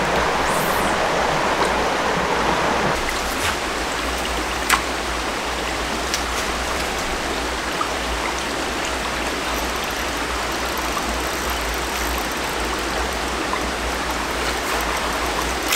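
Small mountain creek running: a steady, even rush of flowing water.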